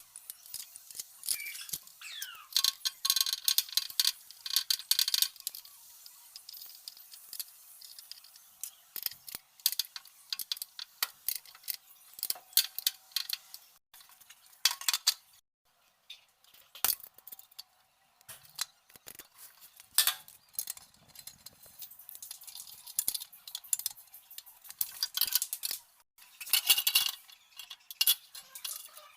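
Metal tools and small metal parts clinking and tapping in an irregular run of sharp clicks, with brief pauses, as a generator is worked on by hand.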